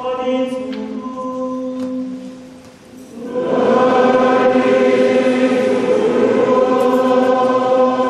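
Choir singing liturgical chant in long held notes. A lighter vocal line holds the first couple of seconds, then about three seconds in the full choir comes in, much louder.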